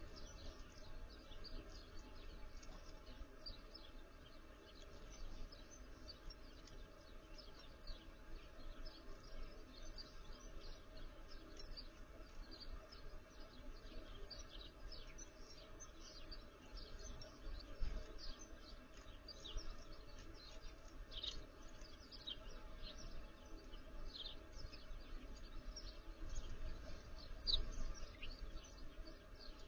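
Small backyard songbirds chirping, a steady run of short high chips one after another, over a low background rumble with a couple of soft low bumps.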